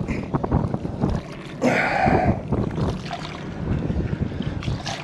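Wet trap rope hauled hand over hand over the side of a boat, with wind buffeting the microphone and water splashing. Scattered knocks throughout, and a brief louder rasp about two seconds in.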